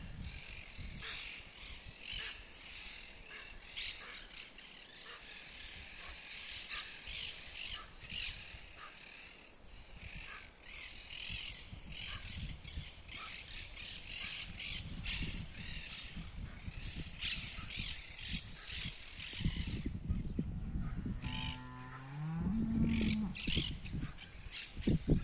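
Birds calling in a rapid, chattering chorus of short repeated calls. About 21 seconds in, a cow moos once, its pitch rising and then holding.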